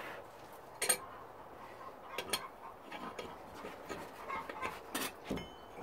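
A few scattered light metal clinks and knocks from a steel bar and blacksmithing tools being handled at a vice, the sharpest about a second in.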